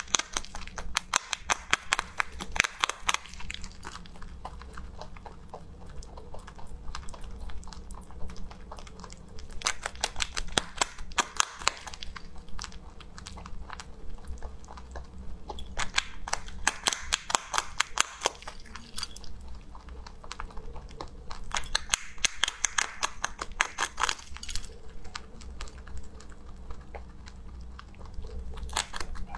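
Rabbit biting and chewing a hard, heart-shaped biscuit held to its mouth, picked up close: quick, crisp crunching that comes in several bouts, with softer chewing between them.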